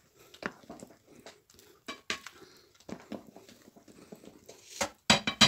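Spatula stirring and scraping thick cake batter in a glass bowl: soft, irregular scrapes and squelches. About five seconds in comes a quick run of loud, sharp knocks.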